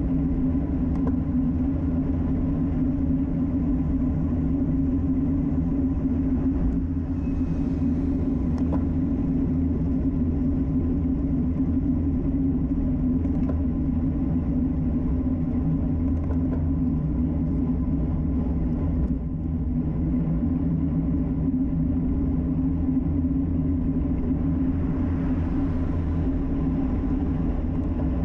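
Wind rush and tyre-on-road noise from a time-trial bicycle riding at speed, picked up by a camera mounted low on the bike: a loud, steady low rumble.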